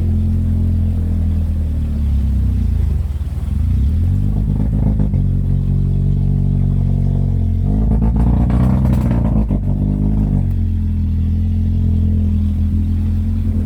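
Opel Blazer engine idling, revved briefly about four seconds in and revved harder for a few seconds past the middle before dropping back to idle. The engine is worn and due for an overhaul.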